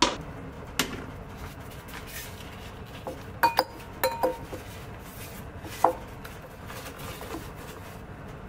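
A metal utensil clinking and knocking against a stainless steel pot while choux dough is worked, about seven sharp ringing clinks, with a quick cluster of four in the middle.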